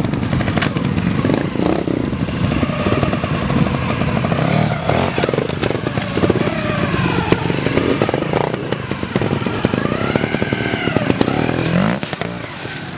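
Trials motorcycle engine revving up and down again and again in short rises and falls of pitch as the bike is worked through a section.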